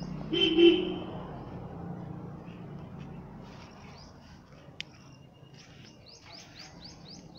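A bird calling a quick run of five or six high, falling chirps near the end, over a steady low background hum. A brief loud sound comes about half a second in.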